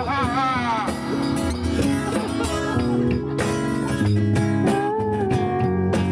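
Small group playing music live: strummed guitar chords over steady low notes, with a man singing into a microphone with heavy vibrato that breaks off about a second in, and a long held wavering note near the end.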